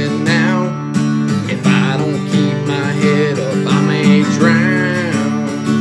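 Acoustic guitar strummed in a steady rhythm while a man sings a slow country ballad over it, his voice wavering on held notes.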